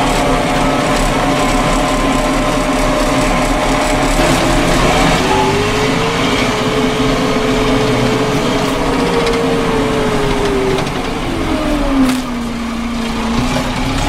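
Tractor engine running under way, heard from inside the cab; its note rises about five seconds in, holds, then drops near the end. A single knock comes about twelve seconds in.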